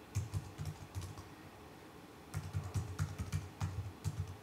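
Typing on a computer keyboard: a short run of keystrokes, a pause of about a second, then a quicker, longer run of keystrokes as a line of text is typed.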